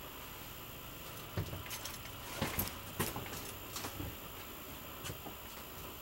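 Footsteps and light knocks inside a camper, a cluster of soft thumps and clicks from about a second and a half to four seconds in, with a few lighter taps later, over a faint steady hiss.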